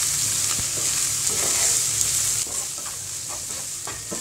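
Shredded cabbage sizzling in hot oil in a frying pan while a wooden spatula stirs through it, mixing in the turmeric and salt. The sizzle drops a little about halfway through, and short scrapes and taps of the spatula stand out near the end.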